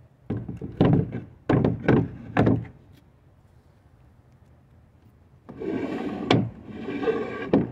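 Wooden sliding seat of a canoe rowing rig moved by hand on its wooden rails: a run of hollow wooden knocks, then about five seconds in a couple of seconds of sliding rumble, broken by two sharp knocks.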